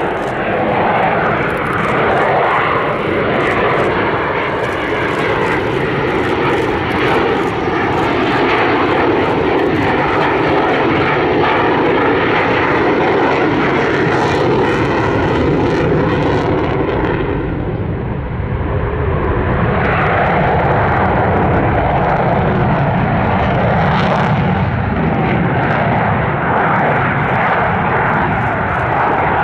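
Belgian Air Force F-16 Fighting Falcon's single jet engine running loudly through display manoeuvres overhead. The roar eases briefly about 18 seconds in, then swells again.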